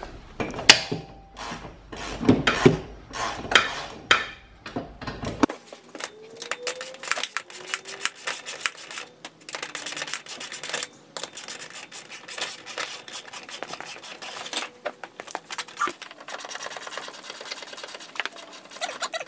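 Hand ratchet wrench clicking in quick runs while bolts under the car are turned, with metal clinks and scraping between the runs.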